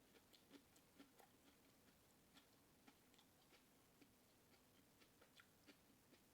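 Faint eating sounds: soft, irregular clicks and smacks of someone eating seafood, a few a second.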